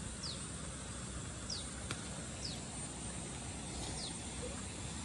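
A bird calls four times, each a short, high note that falls in pitch, spaced about a second apart, over a steady background hiss.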